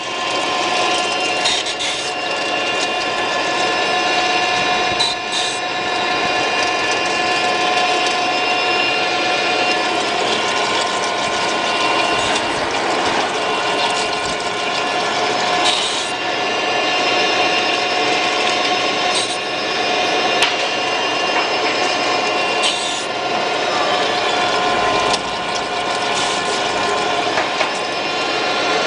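RF-46SF geared-head drill-milling machine running, a steady whine of several tones under a rough scraping noise, with a few sharp clicks now and then.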